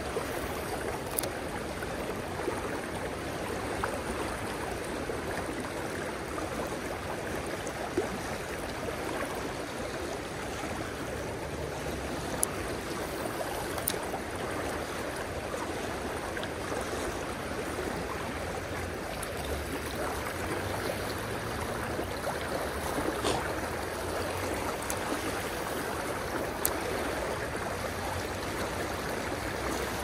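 Fast creek water rushing over a rocky riffle, a steady wash of sound, with a few faint sharp clicks scattered through it.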